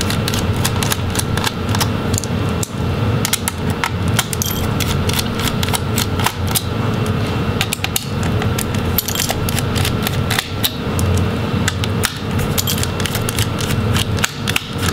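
Screwdriver turning out the heatsink screws on a laptop motherboard: many small irregular metallic clicks and scrapes over a steady low hum.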